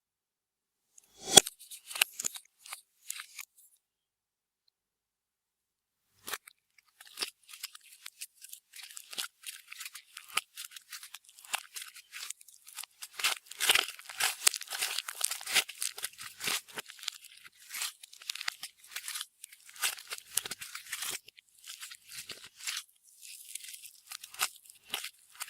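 Clear slime being squished and worked by hand, with rapid crackling and popping. A sharp click about a second in and a few crackles are followed by a short pause, then dense crackling that is busiest around the middle.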